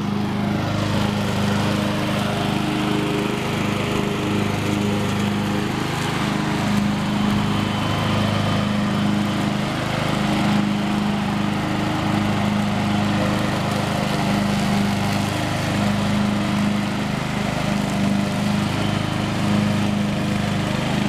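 Riding lawn mower engine running steadily at a constant pitch.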